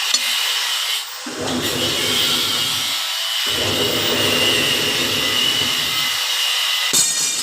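Power tool running steadily in a metal workshop, with a heavier rasping layer that comes and goes in passes of one to three seconds, breaking off briefly about a second in, near the middle and near the end.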